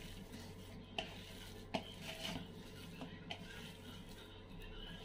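A hand kneading and squeezing a soft chicken seekh kebab mixture in a stainless steel bowl: faint squishing, with a few light knocks against the bowl, the two clearest in the first two seconds.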